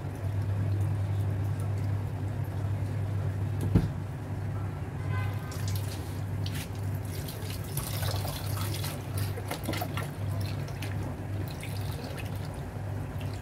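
Wet squelching and splashing of raw lungs being squeezed and rinsed by hand in water in a stainless steel sink. The noises come in irregular bursts, growing busier from about five seconds in. A single sharp knock a little before that is the loudest sound, and a steady low hum runs underneath.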